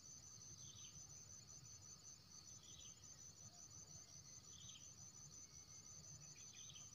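Faint, steady insect trilling, with a short high chirp repeating about every two seconds.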